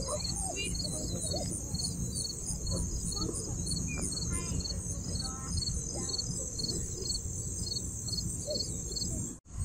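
Insects chirping in a steady, evenly pulsed high-pitched rhythm, a few pulses a second, over a constant low background rumble. The sound cuts out abruptly for a moment near the end.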